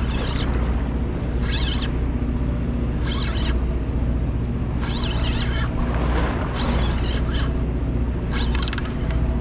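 Party boat's engine running steadily with a low drone, while short high-pitched bursts of about half a second repeat roughly every one and a half to two seconds.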